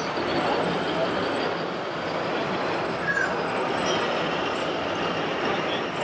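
Steady, noisy hall ambience of a busy model fair: a dense wash of background noise with a murmur of voices, and a few faint short squeaks.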